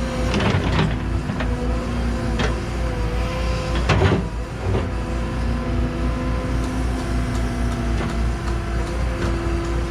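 Cat 314E excavator running under working load, its diesel engine and hydraulics holding a steady hum with a whine that wavers slightly in pitch. Several sharp knocks cut through it, a cluster in the first second and the loudest about four seconds in.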